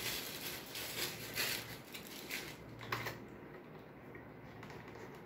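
Handling noise from a turntable being unpacked: a scatter of light clicks, taps and rustles in the first three seconds, fading to faint room tone.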